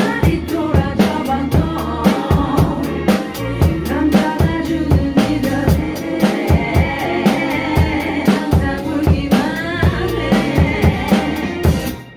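Acoustic drum kit played live, with kick, snare and cymbal strokes, along to a backing track of a pop song with a sung vocal. The music falls away near the end.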